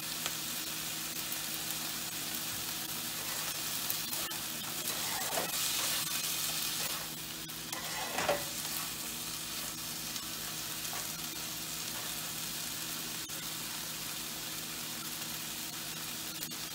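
Chopped onion, tomato, ginger and garlic sizzling steadily in hot oil in a frying pan on medium heat, with a spatula scraping through them twice around the middle.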